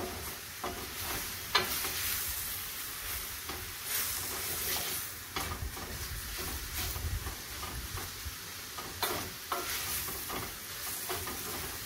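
Shrimp and vegetables sizzling in a stainless steel frying pan over a gas flame while a wooden spoon stirs them, with scattered knocks and scrapes of the spoon against the pan.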